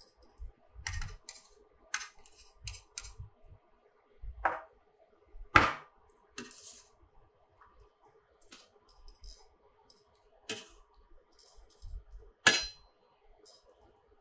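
Metal lid and utensils clinking and knocking against a stainless steel pot while boiled bok choy is lifted out of the water: a handful of sharp clanks with quiet between them, the loudest about halfway through and again near the end.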